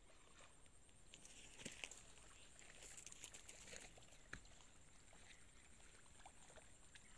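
Near silence: faint outdoor ambience with a few soft ticks and brief faint chirps.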